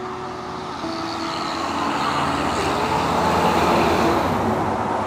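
A large truck driving past on the road, its noise swelling to a peak about three to four seconds in and then fading.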